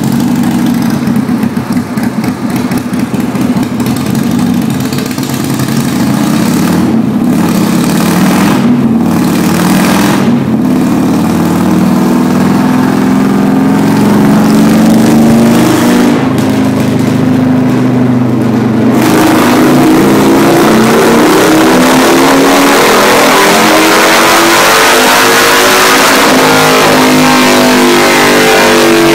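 Harley-Davidson V-twin motorcycle engine, fitted with a 62 mm throttle body and performance air cleaner, run on a chassis dynamometer. It is loud throughout. For the first two-thirds it is revved unevenly. It then makes a wide-open-throttle dyno pull, its pitch rising steadily to about 6,000 rpm near the end.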